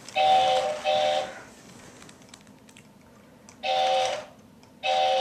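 Remote-control toy train's electronic horn sounding in short steady toots: a double toot at the start, then two single toots near the end.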